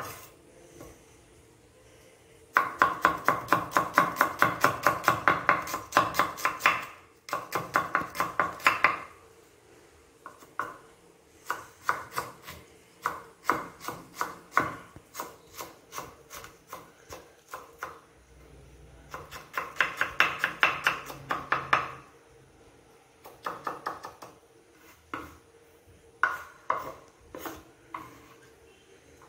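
Kitchen knife chopping an onion on a cutting board: fast runs of knife strokes knocking on the board, several a second, broken by pauses and slower single cuts.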